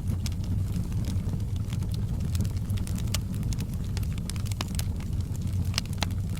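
Wood fire crackling, with many sharp irregular pops and snaps over a steady low rumble of the flames.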